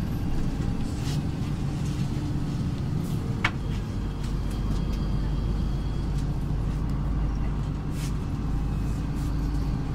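City bus driving, heard inside the passenger cabin: a steady low engine and road rumble, with a few brief rattles and a sharp click about three and a half seconds in.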